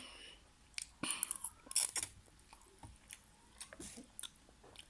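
Close-up mouth sounds of a person chewing and eating, with scattered short wet clicks and crackles, busiest about one to two seconds in.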